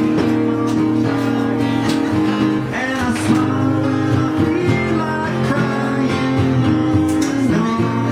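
Live acoustic duo music: a strummed acoustic guitar with a held melody line over it.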